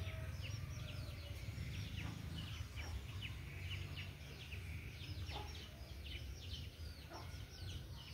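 Small birds chirping busily: many short, high notes falling in pitch, several a second, over a steady low rumble.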